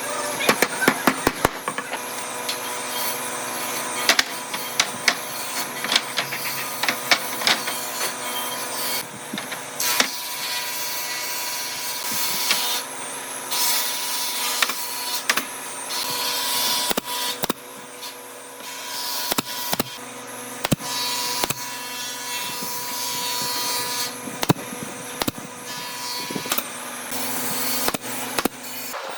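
A power tool running steadily on solid wood, with many sharp knocks and clicks over it.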